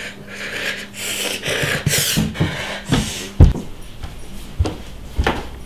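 Rubbing and rustling for about three seconds, then a series of knocks and thumps on wood, the loudest a little after three seconds in.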